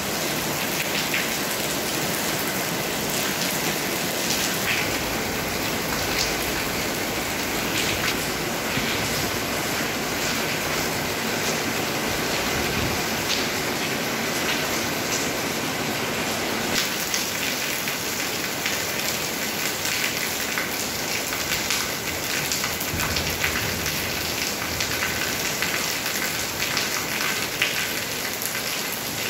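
Very heavy rain falling steadily on paving and walls, with the sharp taps of individual drops scattered through it.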